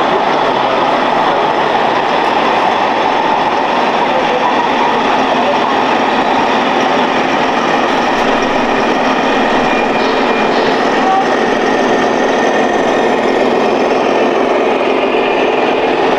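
Steady, loud din of a busy exhibition hall, an even rushing noise with no pauses or clear rhythm.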